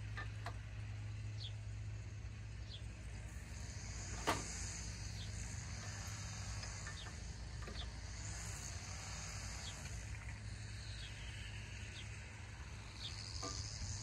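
Quiet outdoor sound: a low steady hum under insects buzzing and short repeated bird chirps, with one sharp metal click about four seconds in as a wrench is worked on the tractor's three-point hitch.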